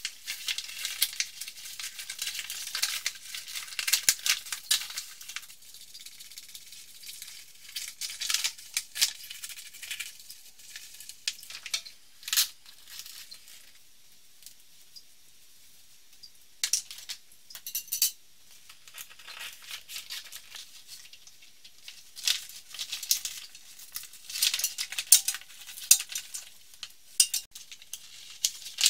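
Rustling and crinkling of a softbox's black nylon shell and silver reflective lining being unfolded and handled, with scattered sharp clicks and taps. It goes quiet for a couple of seconds around the middle.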